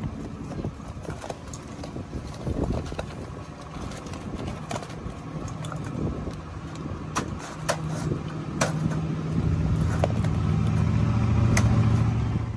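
Scissors snipping and cardboard and wire mesh rustling and clicking as a cardboard shipping crate of doves is cut open by hand. A low steady drone comes in during the second half and grows louder toward the end.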